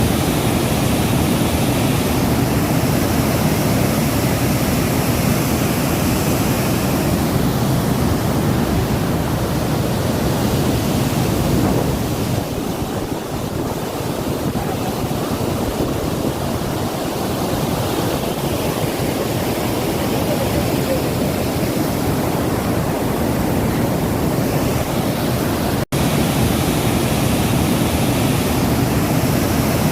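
Water released through the dam's opened spillway gates, rushing and crashing in a loud steady noise, with one brief break near the end.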